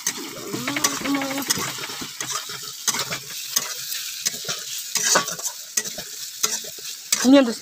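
Chowmein noodles and vegetables sizzling in oil in a metal kadai while a metal spatula stirs and scrapes them: a steady frying hiss with frequent sharp clicks of the spatula on the pan.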